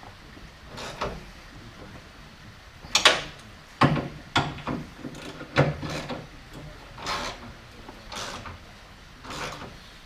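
Irregular knocks and clatters of hand tools and suspension parts being handled while front suspension components are bolted back onto the car, with the loudest strikes a few seconds in.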